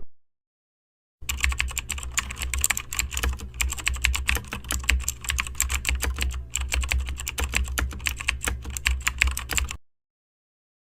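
Rapid, irregular computer-keyboard typing clicks over a low steady hum, starting about a second in and stopping shortly before the end.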